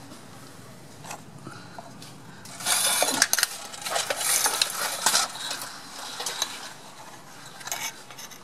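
Metal clinking and scraping of tools and parts being handled. It is quiet at first, then a busier clatter runs from about two and a half to five seconds in, followed by scattered clicks.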